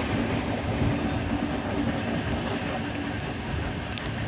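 Passenger train running at speed, heard from inside a coach at an open door: a steady rumble of wheels on the rails, with a faint low hum running under it.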